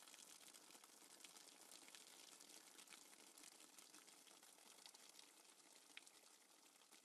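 Near silence: a faint hiss with light crackling, fading slowly toward the end.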